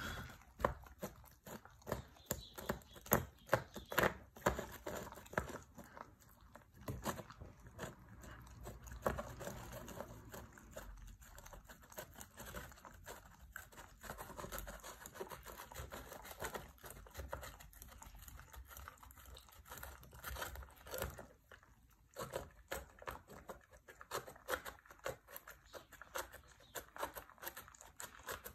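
Husky eating tuna from a small metal tin: soft wet eating sounds with many short, irregular clicks.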